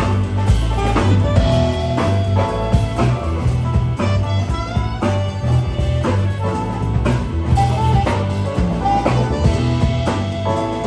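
Live jazz combo playing: saxophone melody over electric bass, keyboard and drum kit.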